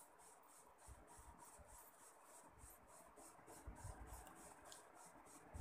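Faint rubbing and rustling of a hand mixing rice flour and grated bottle gourd in a steel bowl, in repeated strokes.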